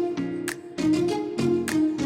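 Background music with plucked-string notes over a steady beat.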